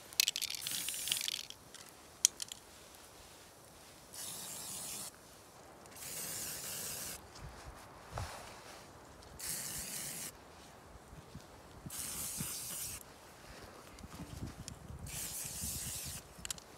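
Aerosol spray-paint can hissing in six short bursts of about a second each, with pauses between, the first the loudest. There is a single sharp click about two seconds in.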